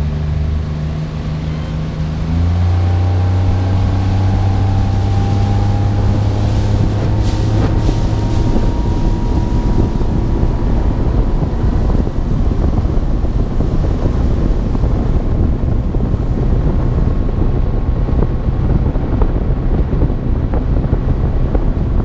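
Outboard motor of a bass boat under way, opening up about two seconds in, its pitch rising slowly as the boat gathers speed, then running steady under heavy wind buffeting on the microphone and water rushing past the hull.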